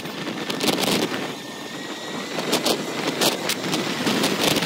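Wind gusting over the microphone with rushing road noise from a moving vehicle at speed.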